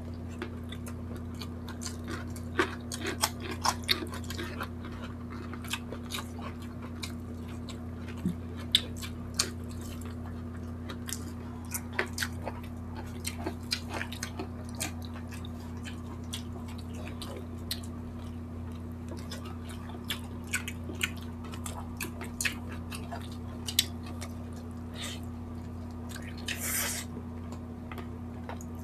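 Close-miked chewing and wet mouth sounds of people eating saucy barbecued chicken by hand: scattered lip smacks and clicks over a steady low hum, with a short breathy slurp-like noise near the end.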